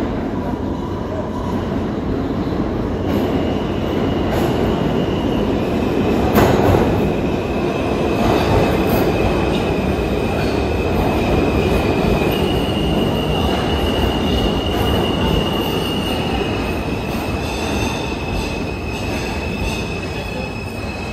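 New York City subway train running through the station, a loud steady rumble of wheels on rail with high-pitched wheel squeal setting in about three seconds in and carrying on, and a sharp knock about six seconds in.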